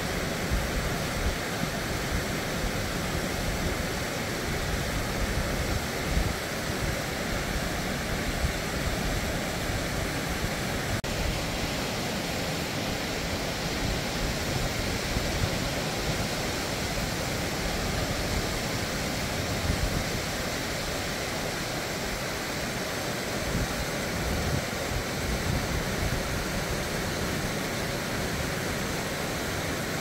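Mountain stream rushing steadily over rocks and a small cascade into a pool.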